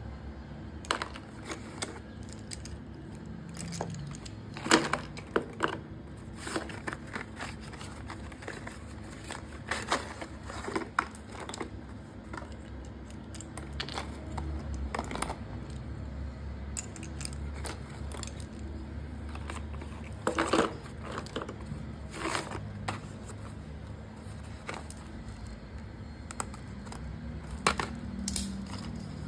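Plastic parcel packaging crinkling and rustling as it is handled and torn open, with scattered sharp crackles, louder about five, ten and twenty seconds in.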